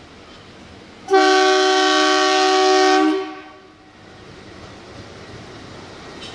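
Diesel locomotive horn, a WDG-3A ALCO, sounding one loud blast of about two seconds with several tones at once, starting about a second in and dying away quickly. After it the low rumble of the approaching locomotive slowly grows.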